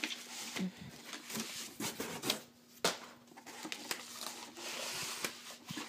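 Cardboard and paper packing rustling and scraping as an item is pulled out of a shipping box: a run of irregular crinkles, scrapes and light knocks.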